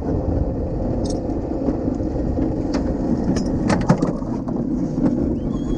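Sailplane rolling out on its landing gear after touchdown: a steady rumble of the wheel and airframe over the ground, with a few knocks from bumps about three and a half to four seconds in. A wavering whistle-like tone starts near the end.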